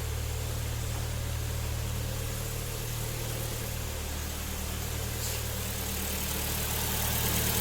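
Kia Sportage's freshly rebuilt G4KD 2.0-litre four-cylinder engine idling steadily, quiet and free of knock after new liners, pistons and rings were fitted for scuffed cylinders. It grows a little louder near the end.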